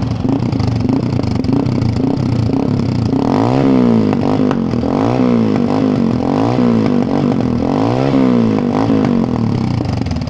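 Honda Bros 125's carburetted single-cylinder four-stroke engine running through an aftermarket Jeskap K2 exhaust with its dB killer fitted. It holds a steady note at first, then about three seconds in is revved in about four quick blips of the throttle, each rising and falling in pitch.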